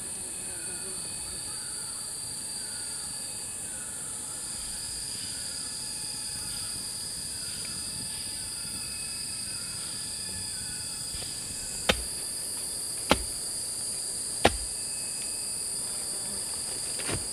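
Steady high-pitched drone of insects such as crickets or cicadas, with a short falling chirp repeating about twice a second through the first half. In the last third, three sharp knocks a second or so apart stand out as the loudest sounds.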